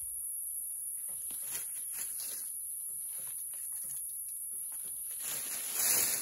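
Steady high-pitched insect chorus, with a few faint light crackles and a louder rustle near the end.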